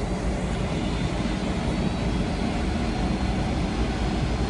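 Boeing 747 cabin noise: the four jet engines and airflow heard from inside the passenger cabin, a steady low rumble with hiss above it, at the start of a takeoff.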